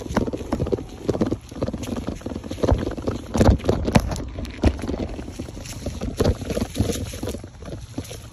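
BMX bike rolling over bumpy grass and ground: a low rumble of the tyres with irregular knocks and rattles. Fingers rubbing and knocking on the phone's microphone add to it.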